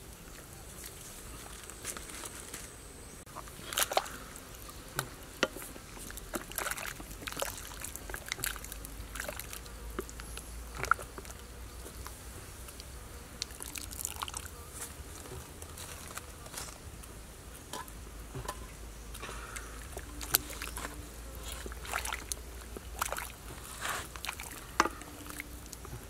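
Whole eels being turned and lifted in a wok of steaming hot water with a spatula: water sloshing and dripping back into the pan, with scattered sharp clicks and crackles throughout.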